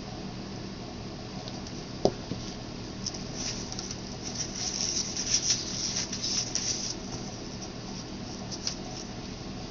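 A small wrapped canvas is set down on a plastic-covered table with one sharp knock about two seconds in. A few seconds of light crackling and ticking follow, over a steady low room hum.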